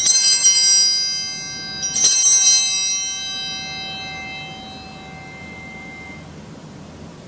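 Altar bells shaken by a kneeling altar server at the elevation of the chalice, signalling the consecration: a ring at the start and another about two seconds in, each a bright shimmer of many tones that rings on and fades away.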